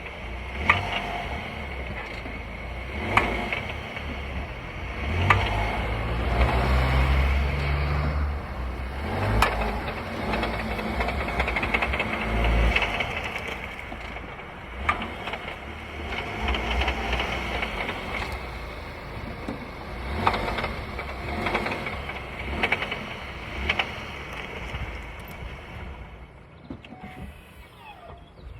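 VW Tiguan running with a low engine drone that rises in pitch for a few seconds, over which come about nine sharp clunks at irregular intervals. This is the load-change rattle of unknown origin that the owner suspects may lie in the drivetrain, the gearbox or the dual-mass flywheel.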